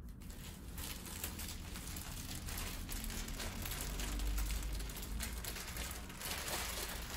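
Plastic garment packaging crinkling and clothes rustling as they are handled.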